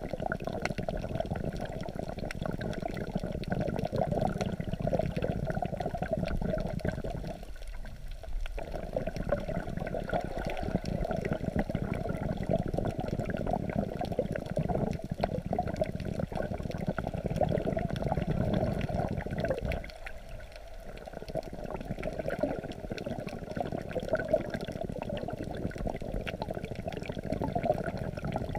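Muffled wash and sloshing of sea water around a camera held just under the surface and rocked by waves. The low rumble drops out briefly twice.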